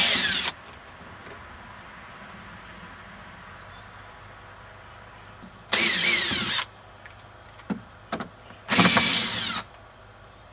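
Cordless screw gun backing screws out of a wooden frame: three short whirring bursts, one right at the start and two more after a pause of several seconds, with a couple of light knocks between them.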